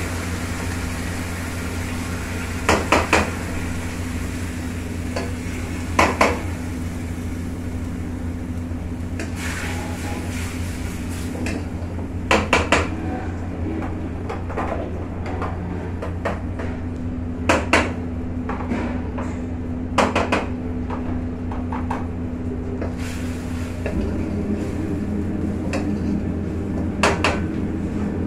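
Metal ladle clanging and scraping against a steel wok during stir-frying, in short clusters every few seconds, over steady sizzling and a constant low kitchen hum.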